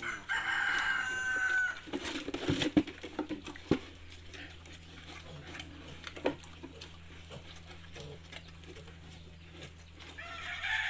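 A rooster crows twice: one long crow soon after the start, and another near the end. A few sharp knocks come in between.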